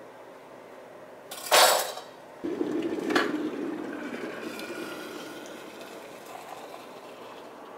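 A loud clatter of kitchenware about one and a half seconds in. Then water is poured from a red kettle into a ceramic mug holding a tea infuser: a steady splashing pour that slowly fades, with a light clink partway through.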